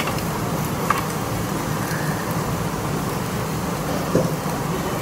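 Steady low hum and noise of a Korean barbecue restaurant around a tabletop grill. There is a light clink of utensils about a second in and another near the end.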